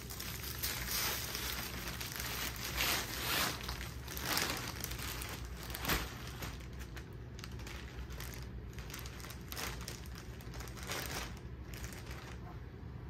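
A thin clear plastic sleeve crinkling in irregular bursts as a cloth dust bag is folded and pushed into it by hand.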